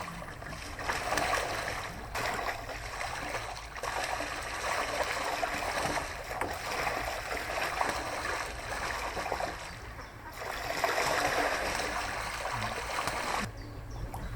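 Water splashing and churning in several stretches, broken by short pauses.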